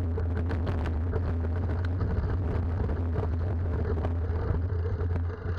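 Mountain bike riding over a dirt and gravel trail, heard from a camera on the bike or rider: a steady low wind rumble on the microphone with tyre noise and many small rattles and clicks as the bike goes over the rough ground.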